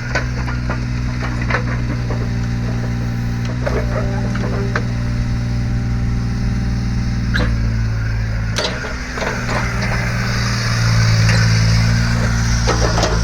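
Takeuchi TB125 mini excavator's diesel engine running steadily, with scattered metallic clicks and clanks. Its note rises and grows louder about ten seconds in.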